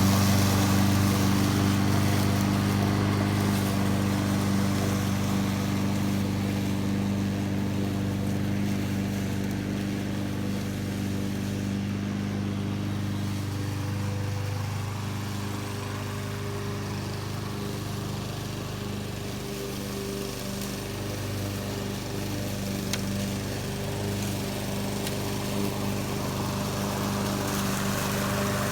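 Honda HRX217 lawn mower's GCV200 single-cylinder engine running steadily while mowing. It fades gradually and grows louder again toward the end.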